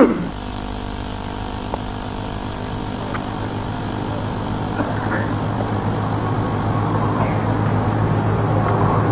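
A steady low hum with hiss, slowly growing a little louder.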